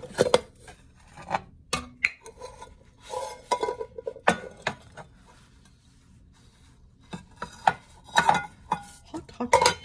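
Kitchenware knocking, clattering and scraping as a baked breakfast is worked loose and turned out of its dish. There is a quieter stretch in the middle.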